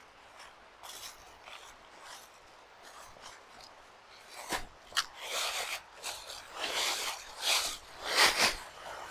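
Footsteps crunching and rustling through dry fallen leaves on a rocky trail. They are faint at first, then from about halfway in come as louder steps, one every second or less.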